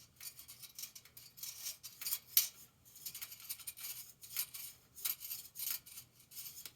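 Faint, irregular scraping, rubbing and clicking of thread and small parts being handled and fed through a bicycle frame, with one sharper click about two and a half seconds in.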